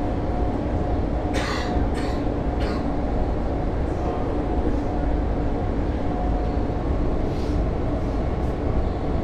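Interior of a London Overground Class 710 electric train running at speed: a steady low rumble of wheels on the track under a faint steady motor hum. A few short bursts of noise come between about one and three seconds in.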